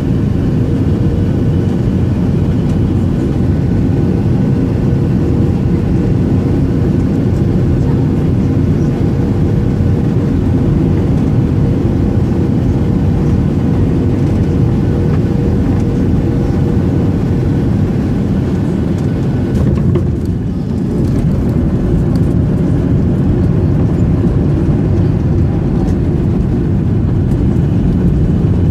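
Cabin noise of a Boeing 737-800 during landing: a loud, steady roar of engines and airflow heard from a passenger seat. A thin steady tone fades out about two-thirds of the way through, and the noise dips briefly before returning a little louder and deeper.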